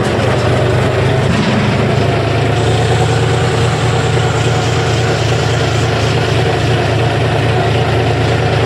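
John Deere tractor's diesel engine running steadily as the tractor drives along, heard close up from the driver's seat.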